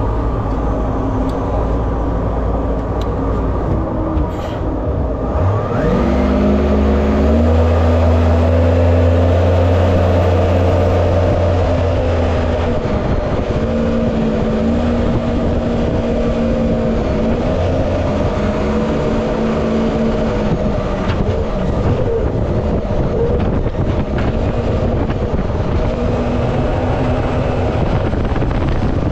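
Jet boat engine running under way on a river, revving up sharply about six seconds in, then holding and easing its revs, over the steady rush of water and wind.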